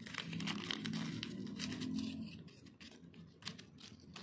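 Crinkling and tearing of a thin wrapper as a small toy piece is unwrapped by hand, in irregular crackles, with a low hum underneath for the first two seconds.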